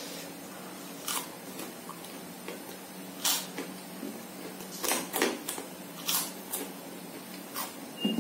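Eating sounds: chewing and mouth clicks as fish is picked apart by hand on its paper wrapping. Short sharp clicks come every second or so over a low steady hum.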